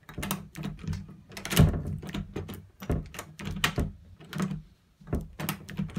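Interior door's lever handle and latch being worked over and over: a rapid, uneven string of sharp metallic clicks and knocks.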